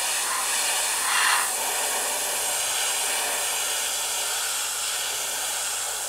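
Airbrush spraying a thin coat of paint: a steady hiss of air.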